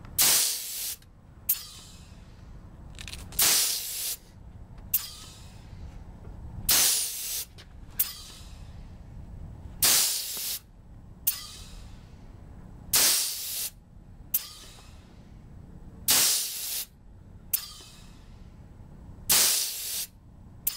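Bogert Aviation 30x air-driven strut pump cycling while it charges a landing-gear strut. A loud hiss of exhausting drive air comes about every three seconds, seven times, and each is followed about a second and a half later by a shorter, softer hiss.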